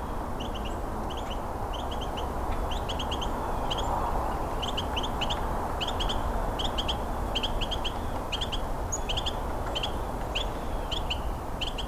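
Carolina wren calling: a repeated call of short, high notes in quick clusters of two to four, about two clusters a second.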